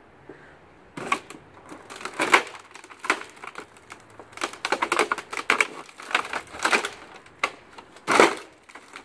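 A broken flat-screen TV's plastic casing and glass panel cracking, crunching and clattering as it is stomped on and handled against concrete: a series of sharp cracks and knocks, the loudest crunch about eight seconds in.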